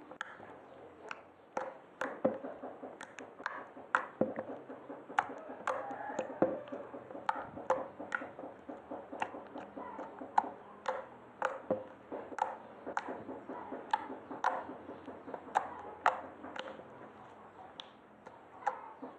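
Homemade glue slime being handled, giving off short, sharp clicking pops at irregular intervals, about two a second.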